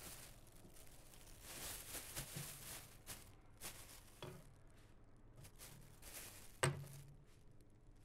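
Onion being peeled: dry papery skin crackling and rustling in faint irregular bursts, with one sharper click near the end.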